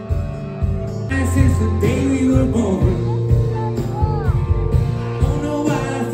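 Live band playing amplified rock music with electric guitar, bass guitar and drums, heard from the audience. The full band comes in louder about a second in.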